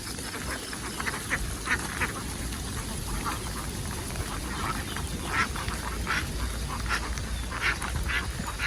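A flock of domestic ducks quacking, many short calls scattered irregularly and overlapping, over a low steady rumble.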